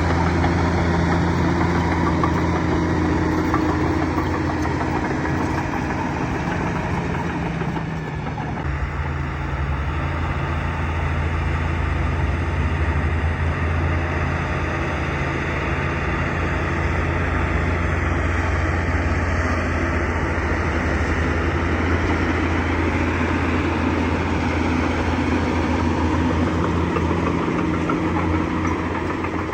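Bulldozer's diesel engine running steadily, its note dipping briefly about eight seconds in.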